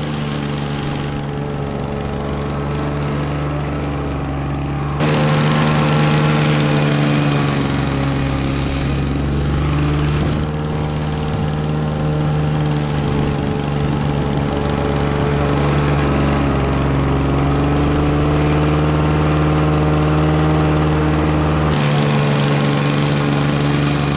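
Lawn mower engine running at a steady speed, with a sudden step up in loudness about five seconds in.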